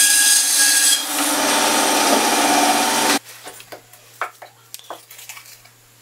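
Grizzly G0803 9-inch benchtop band saw running and ripping through a thick walnut block, a steady loud sawing rasp with a few fixed tones that cuts off abruptly about three seconds in. After it, the cut walnut pieces are handled, with quiet rubbing and light taps over a low hum.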